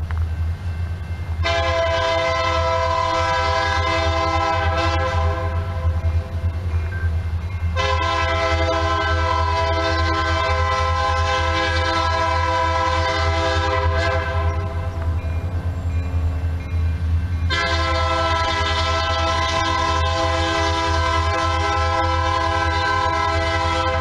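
An approaching Union Pacific SD70M diesel locomotive sounds its multi-chime air horn in three long blasts, the last still sounding at the end, over the steady low rumble of the oncoming train.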